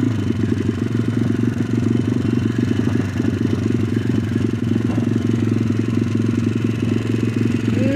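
WPB pit bike's single-cylinder four-stroke engine running loud at fairly steady revs, its rapid firing pulses even throughout.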